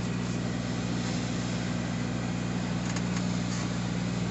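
Semi-truck diesel engine idling with a steady low hum.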